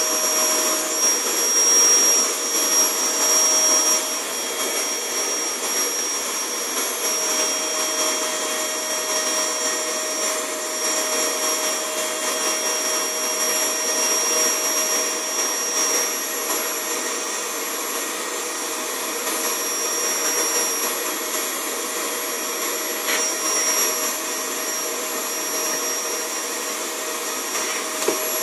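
Vacuum cleaner running steadily, a continuous rushing noise with a high, even whine.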